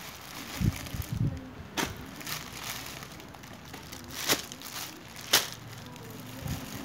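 Plastic bags and clear plastic garment wrapping rustling and crinkling as clothes are handled and pulled out of a wrapped bundle. Sharp crackles come several times, with a couple of dull knocks about a second in.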